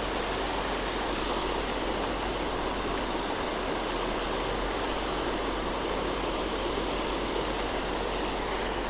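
Steady, even rush of a waterfall, with one short click right at the end.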